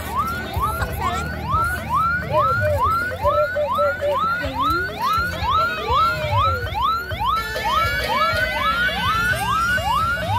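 An electronic siren yelping in quick rising sweeps, about two or three a second, over music with a pulsing bass; higher held tones join in near the end.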